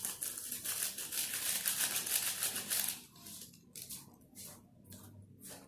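Fast rattling and rustling, like something being shaken, for about three seconds, then a few separate short rustles or taps.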